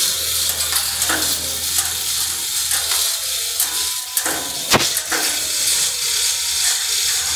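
Steel-frame construction work sounds: a steady crackling hiss over a faint low hum, with one sharp knock a little past halfway.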